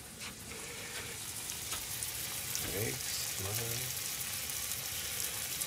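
Eggs, slices of Spam with bacon and tomato halves sizzling together in a steel frying pan, a steady crackling hiss of frying.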